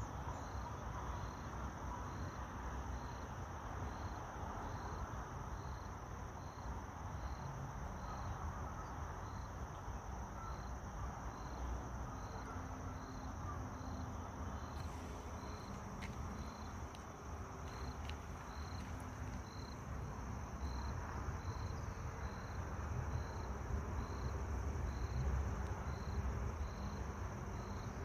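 Insects calling: a steady high trill and a short high chirp repeating about once a second, over a constant low rumble.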